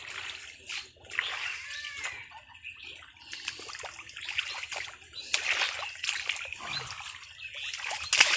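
Water splashing and sloshing in irregular bursts, as hands work in shallow water catching a fish.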